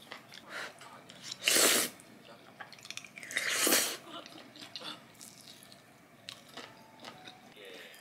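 Jajangmyeon noodles being slurped twice, two loud noisy slurps about two seconds apart, with chewing and small clicks of chopsticks and spoon against the bowl between them.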